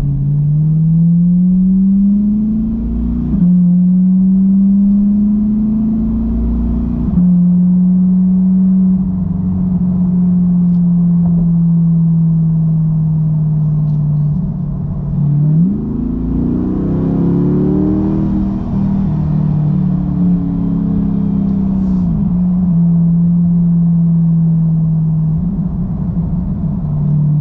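2022 Corvette C8 Stingray's 6.2-litre V8 through a Corsa Xtreme exhaust while driving: the note rises and drops at two quick upshifts in the first seven seconds, then holds steady. About halfway the revs rise sharply, then fall slowly as the car eases off.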